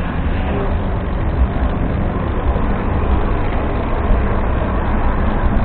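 Steady rumble of wind on the microphone and tyre-on-road noise from a front-mounted camera riding along a city street, with traffic around it.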